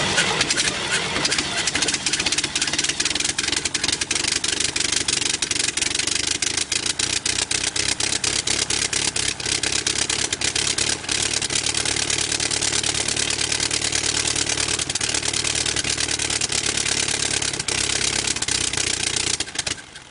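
Reproduction 1903 Wright Flyer four-cylinder, water-cooled engine running on a stand, a loud, fast and even clatter of firing strokes that stops abruptly near the end.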